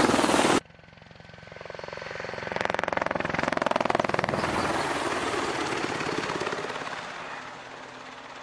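AH-64D Apache helicopter flying close past: the rapid beat of its rotor blades over the whine of its twin turboshaft engines. The sound cuts off sharply about half a second in, then swells as the helicopter passes and fades as it flies away.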